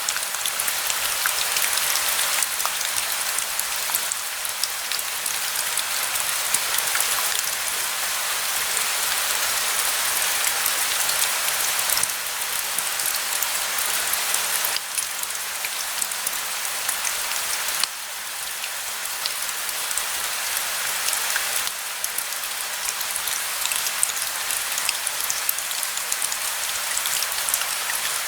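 Steady rain falling, a continuous hiss with many separate drop ticks through it.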